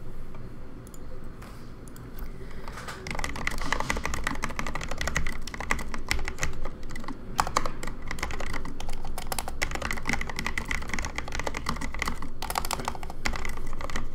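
Typing on a computer keyboard: a fast, steady run of keystrokes starting about three seconds in, with a brief pause near the end.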